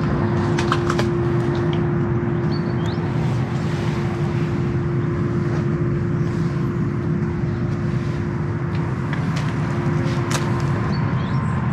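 Electric-hydraulic wheelchair lift on a carriage running its pump motor: a steady hum with one constant tone, and a few light clicks near the start and again near the end.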